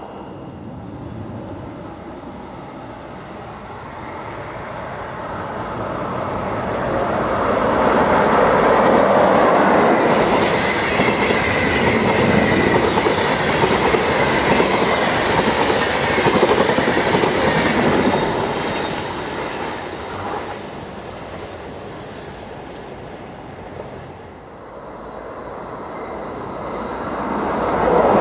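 A train passing on the tracks: it grows louder over a few seconds, runs by loudly for about ten seconds, then fades. Near the end another train starts to approach.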